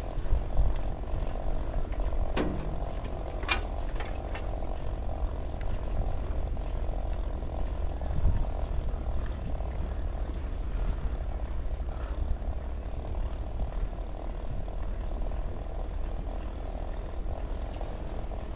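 Steady rumble of wind on the microphone and bicycle tyre noise while riding along an asphalt cycle path, with a constant mid-pitched hum underneath. A brief falling whistle and a few short high chirps come about two to four seconds in.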